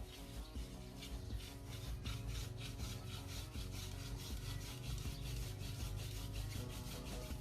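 Wooden hand-drill spindle grinding against a wooden hearth board in a fast, even rhythm of rasping strokes as it is spun back and forth between the palms to make a friction-fire ember.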